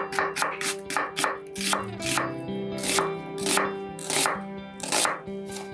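Kitchen knife cutting through an onion onto a wooden cutting board: a quick run of knocks, about five a second, then slower single cuts roughly every half second.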